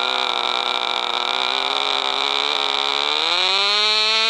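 A flying-wing radio-control model airplane's motor and propeller run steadily while the plane is held on the ground. A little after three seconds in, the pitch rises and then holds higher as the throttle is opened for takeoff.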